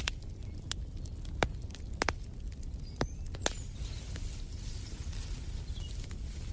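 Wood fire burning in a fireplace: a steady low rumble of flames with sharp crackling pops about once a second, most of them in the first half, and a few faint bird chirps in the middle.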